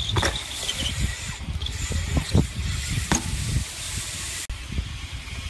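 Wind buffeting a phone microphone, with sharp knocks and clatter from a BMX bike landing and rolling on concrete. The first knock comes just after the start, and two more come around the middle.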